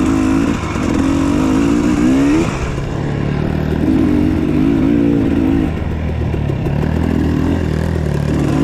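Dirt bike engines running at low trail speed, the revs rising and falling with the throttle; the pitch climbs about two seconds in, then drops back.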